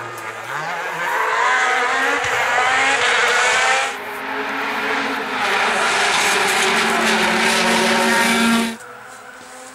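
Hyundai i20 Coupe WRC rally cars' turbocharged four-cylinder engines at high revs, passing close by, the pitch climbing as they accelerate. The sound changes abruptly about four seconds in and cuts off suddenly near the end.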